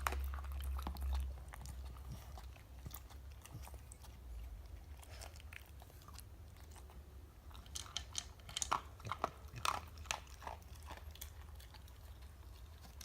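A dog chewing and crunching dry food, in irregular crunches that come thickest in the second half.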